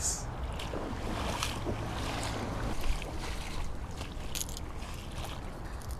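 Steady wind and water noise around a kayak, with a few faint clicks and taps from handling a fishing reel tangled in a backlash.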